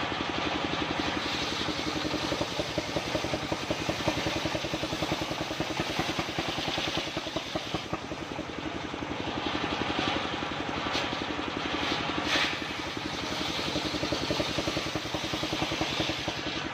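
Engine-driven assembled circular saw running steadily, its engine making a rapid, even pulse.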